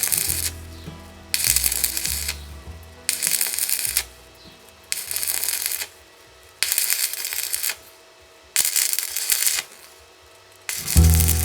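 Stick welding arc crackling in about six short bursts of roughly a second each, with pauses between them, as short welds are laid on thin square steel tube.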